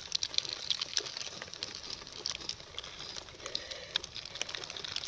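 Irregular small clicks, ticks and crinkles of hands handling a plastic snack wrapper and split wooden kindling while laying a campfire.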